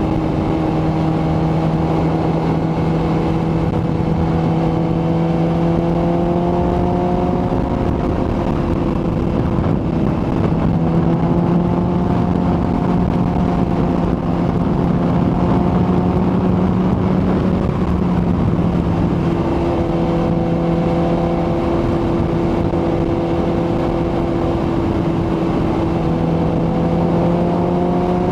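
Kawasaki ZX-14R inline-four engine running under way at steady speed, its note climbing slowly and shifting twice, over a constant rush of wind noise.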